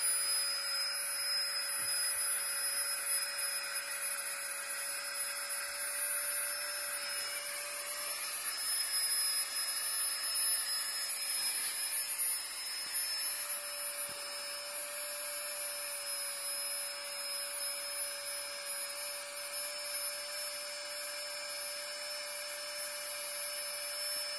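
Flextail Mark II battery-powered air pump running steadily with a high whine and a low hum, inflating a Sea to Summit Ether Light XT Extreme sleeping mat. The mat is still filling and has not reached pressure. The sound shifts slightly about eight seconds in.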